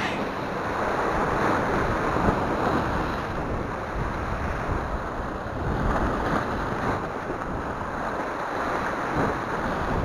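Sea surf washing in and breaking against a rocky shoreline, swelling and easing with each wave, with wind buffeting the microphone.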